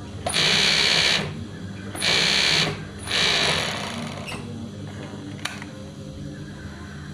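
Industrial overlock sewing machine stitching in three short bursts, each about a second or less, over the steady hum of its running motor. A single sharp click comes a little after five seconds in.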